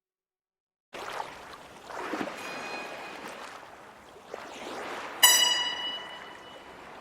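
Silence, then a steady rush of flowing water fades in; about five seconds in a bell is struck once and rings on, slowly dying away.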